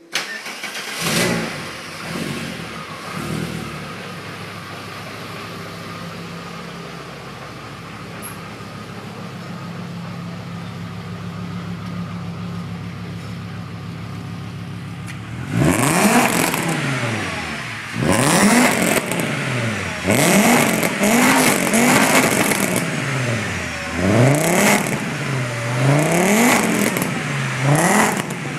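Volkswagen VR5 five-cylinder engine in a Mk1 Rabbit, heard through a 2.25-inch exhaust with one resonator and a Borla Sportsman muffler. A few short blips come first, then a steady idle, then from about halfway a string of quick revs that each rise and fall. The uploader says the engine was flooding during these revs.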